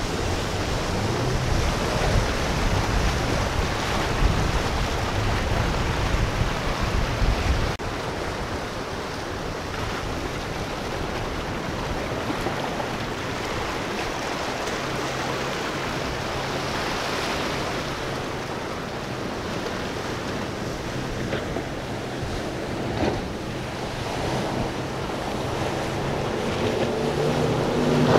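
Rough inlet water rushing and breaking, with wind gusting on the microphone for the first several seconds. Past the middle a motorboat's engine hum comes in faintly and grows louder near the end as the boat runs through the chop.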